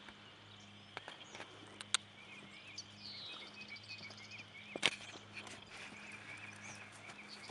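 Pasture ambience: birds chirping over and over above a steady low hum, with a horse trotting up over grass and a few sharp knocks, the loudest about two and five seconds in.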